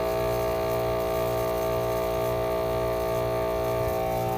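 Air-conditioning condensing unit's compressor running with a steady hum while its head pressure climbs, the condenser fan wire having been pulled to test the high-pressure switch.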